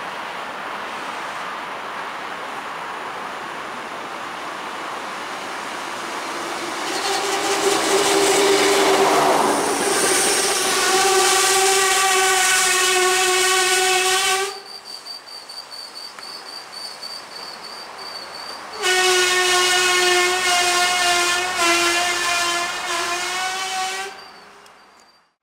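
Koleje Dolnośląskie SA134 (Pesa 218M) diesel railcar running into the station. A rising rumble gives way, about seven seconds in, to a loud steady pitched tone with overtones. The tone cuts off sharply, then comes back for about five more seconds near the end.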